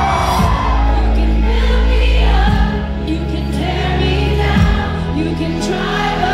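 A woman singing a ballad live into a handheld microphone over a backing track of sustained low bass notes that change about every two seconds, with many voices singing along.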